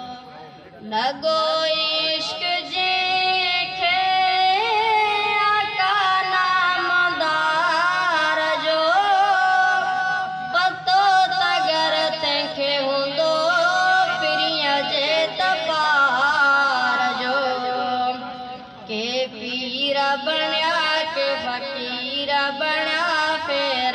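A singer's long, wavering melismatic phrases in a Sindhi naat, devotional singing with held notes that bend up and down, broken by two short pauses for breath.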